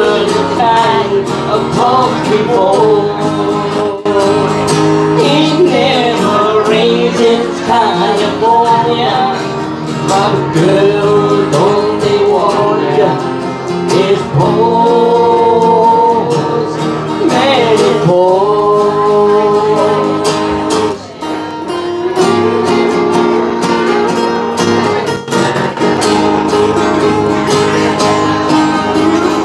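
Live band playing an instrumental passage of a soft-rock song, acoustic guitar prominent, with a lead melody that slides up and down in pitch over the accompaniment.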